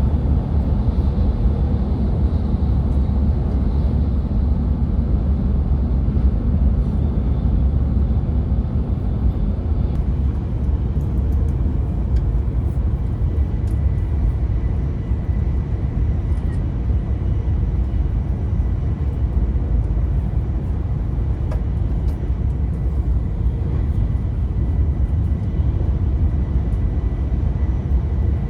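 Tohoku Shinkansen train running at speed, heard inside a passenger car: a steady low rumble with an even rushing noise over it.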